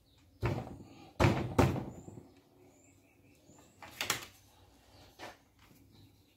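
Metal clunks of a Gilera 200 motorcycle engine being turned over on a steel engine stand: a few heavy thuds in the first two seconds and a sharper metallic clank about four seconds in.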